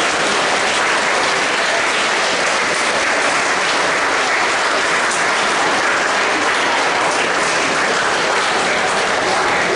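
Audience of students in a large hall applauding, a steady continuous clapping.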